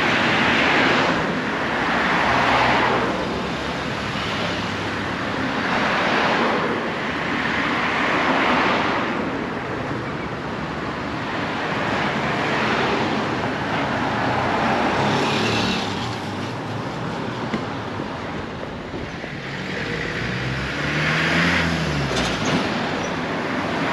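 Street traffic: vehicles passing one after another, each a swell of engine and tyre noise. A little after twenty seconds in, one engine's pitch rises and falls as it goes by.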